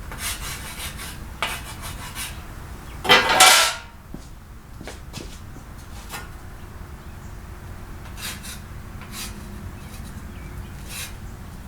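Rubbing and scraping from removed metal body parts being handled: a few short strokes, then one louder scrape about three seconds in, then a few light clicks.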